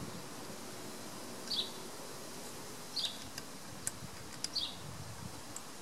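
A small bird calling: short, high chirps that fall in pitch, repeated about every one and a half seconds, over a quiet background hiss. A few faint clicks sound in the middle.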